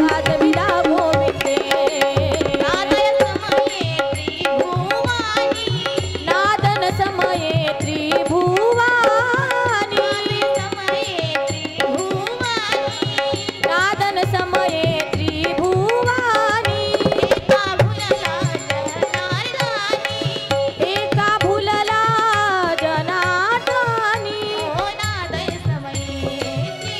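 Devotional kirtan singing: a woman's voice singing an ornamented melody that glides and turns, accompanied by tabla strokes over a steady held drone.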